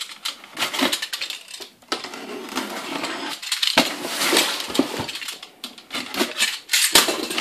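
Utility knife slicing through packing tape along the seam of a cardboard box: irregular scraping and slitting strokes, with cardboard flaps rubbing and a few sharp clicks and knocks.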